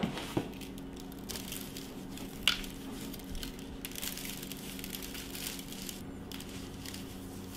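Faint soft squishing and rustling of hands working a raw pork shoulder during seasoning, with a small sharp click about two and a half seconds in, over a steady low hum.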